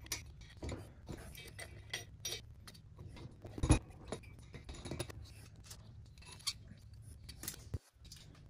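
Light metal clicks and taps as the intake manifold and its nuts are handled and fitted by hand onto the cylinder heads of a 1928 Harley-Davidson JH engine, with one louder knock a little under four seconds in.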